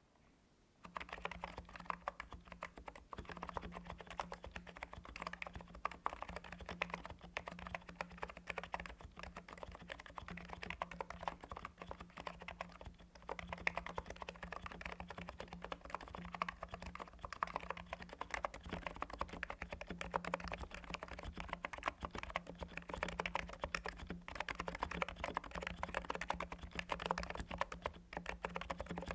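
Continuous typing on a NIZ x87 tenkeyless keyboard with electro-capacitive, Topre-style switches: a dense, steady stream of keystrokes that starts about a second in.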